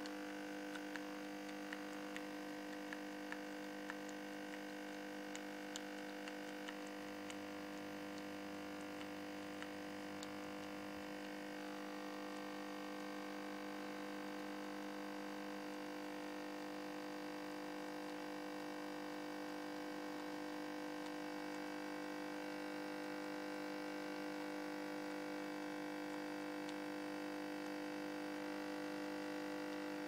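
Krups Nespresso capsule machine brewing, its pump humming steadily as coffee runs into the mug. Light clicks come about once a second during the first ten seconds.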